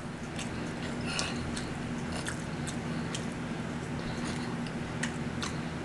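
A person chewing a mouthful of food close to the microphone: scattered faint wet clicks and soft mouth sounds over a steady low hum.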